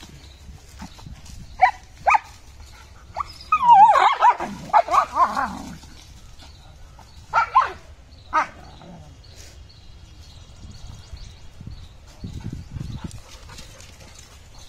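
German shepherd puppies play-fighting, giving short high barks and yelps. A dense burst of them comes about four seconds in and two more near eight seconds, after which they fall quiet and only scuffling is left.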